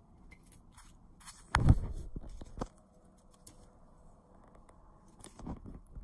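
Scattered light scratching and scuffing. About one and a half seconds in there is a louder knock followed by a second or so of rustling, and a smaller knock comes near the end.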